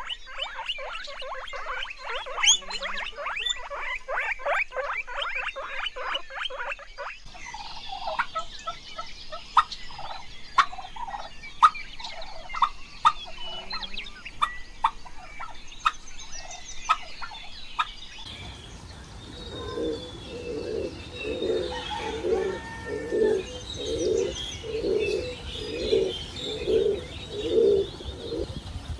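Animal calls from three different animals in turn. First a fast run of pulses, then scattered clicks and short chirps, then a low call repeated about once a second.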